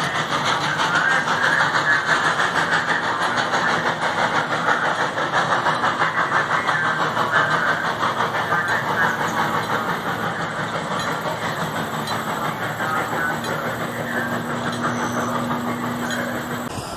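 Narrow-gauge steam train's cars rolling along the track and moving away, with a steady rhythmic clatter that slowly fades. A faint steady hum comes in over the second half.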